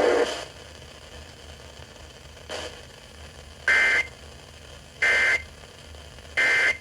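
Emergency Alert System end-of-message data signal: three short, equal bursts of two-pitch digital warbling, about 1.3 seconds apart, over a low radio hiss. It marks the close of the warning broadcast.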